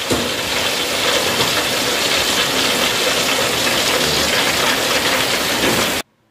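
Hot oil sizzling steadily in a wok on a gas stove, a dense continuous hiss that cuts off abruptly near the end.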